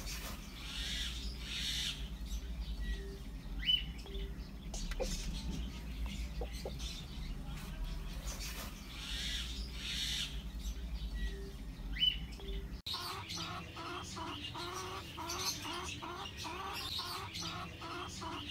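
Broody hen clucking in a steady, even run of about three clucks a second from roughly 13 seconds in. Before that, a low hum with a couple of short high chirps.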